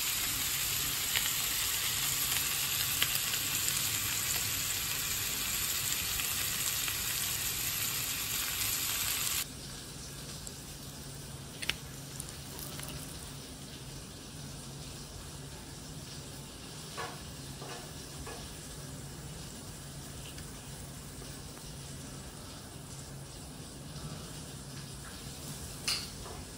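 Lamb cutlets sizzling in melting butter in a cast-iron skillet, a steady frying hiss that cuts off abruptly about nine seconds in. After that only a quiet low hum remains, with a few faint clicks.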